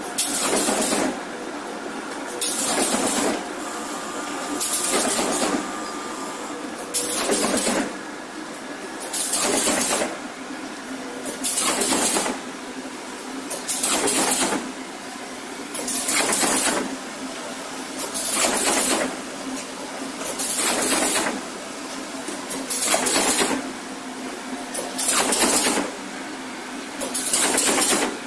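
Cardboard partition assembly machine running in cycles: a loud burst of noise about every two and a quarter seconds over a steady running hum.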